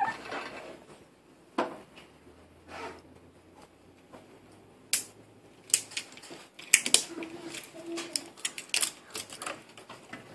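Irregular sharp clicks and light knocks as a plastic-cased digital multimeter is handled and set about, sparse at first and coming thicker in the second half.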